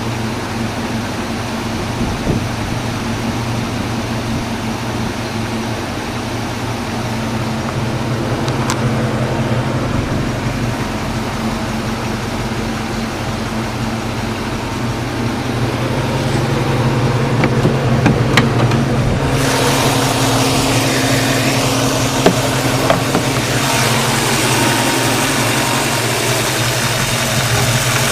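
1995 Mustang Cobra's V8 idling steadily with a knocking noise, which the owner first took for a bearing but now thinks likely comes from the A/C compressor with its clutch disengaged. The sound grows louder and brighter about two-thirds of the way through.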